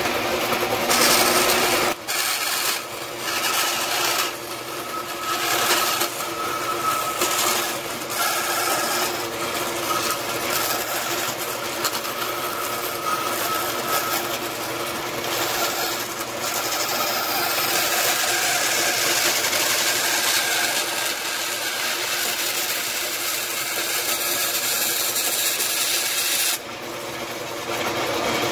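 Bandsaw running, its blade cutting a sheet-metal blank, with a continuous rasping cutting noise that rises and falls as the piece is fed along a curved line. The cutting noise drops off near the end, leaving the saw running.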